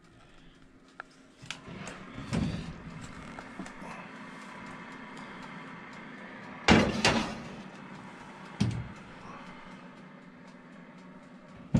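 Baking dish being loaded into a countertop oven: a few light clicks as the oven is opened, a loud clatter of the dish going onto the wire rack about seven seconds in, a thump, and a sharp click of the oven door shutting at the end, over a steady low hum.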